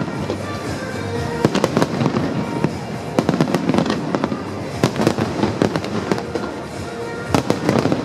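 Fireworks bursting in quick, continuous succession: many sharp bangs and crackles overlapping, with no pause.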